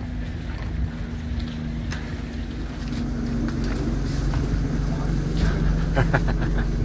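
Bus engine idling with a steady low hum that grows gradually louder, and a quick run of sharp clicks about six seconds in.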